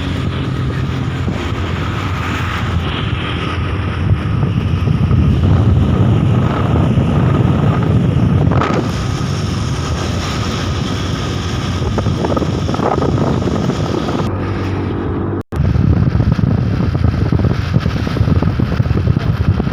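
Truck engine running steadily, with wind buffeting the microphone. The sound cuts out for an instant about fifteen seconds in.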